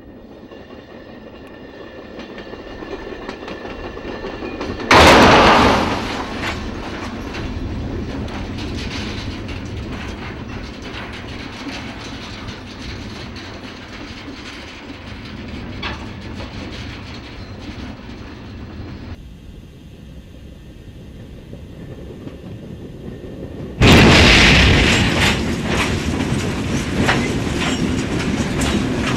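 A rolling passenger train grows louder until its cab car slams into a standing locomotive in a full-scale crash test: a sudden loud crash, then a long grinding rumble of crushing and sliding railcars. A second crash with the same long rumble comes near the end, from another recording of the impact.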